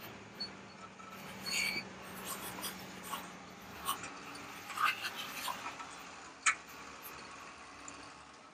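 Plastic Bruder JCB 4CX toy backhoe loader pushed by hand, its bucket scraping and scooping ash and grit on concrete, with small clicks and rattles of debris. A brief high squeak comes about one and a half seconds in, and the loudest sharp click about six and a half seconds in.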